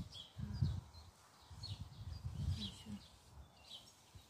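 Small birds chirping in the trees, short high calls repeating every second or so, over irregular low bumps and rumble.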